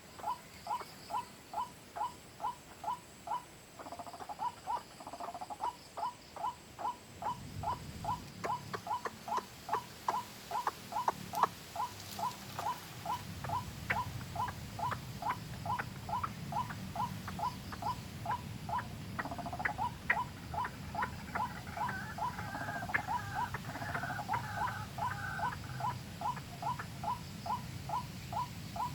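White-breasted waterhen (ruak-ruak) call: a short note repeated over and over, about three a second.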